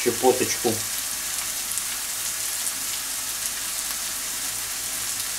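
Diced onion sizzling steadily as it fries in a skillet, with a short spoken word at the start.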